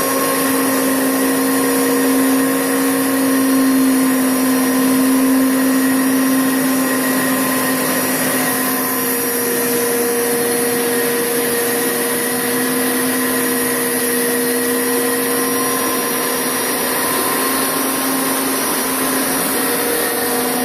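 Hoover Power Scrub Deluxe carpet cleaner running on its wash setting: a steady motor hum with suction hiss and spinning scrub brushes, as it is pushed slowly forward and back over the carpet.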